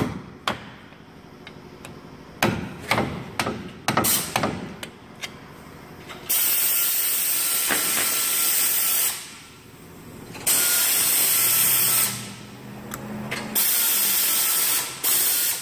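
Several sharp metal clicks and clinks of tools at the clamp. Then a cutoff wheel runs in three bursts of a few seconds each, a steady loud hiss, cutting through the metal squeeze clamp on a CV axle boot.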